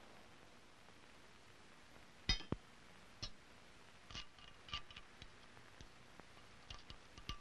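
Knocks and clinks as a casting mold is broken apart to free a freshly cast brass butt plate: one sharp knock about two seconds in, followed closely by a second, then scattered lighter knocks and clicks, some with a short ringing note, over a faint hiss.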